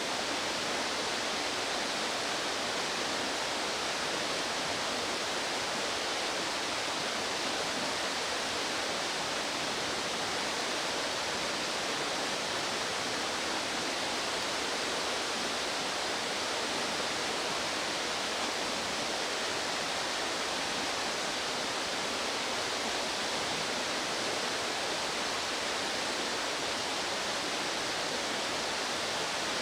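Steady rushing of a fast-flowing mountain stream, an even hiss of water that does not change.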